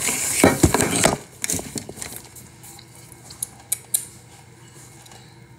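Makeup train case being handled, its plastic trays and compacts clattering: a busy burst of rattling in the first second, then a few scattered clicks.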